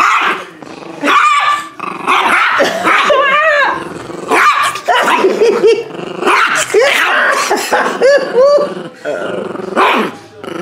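A dog growling and barking aggressively in a continuous fit, with snarls and sharp yelps that rise and fall in pitch: a defensive warning at someone coming close.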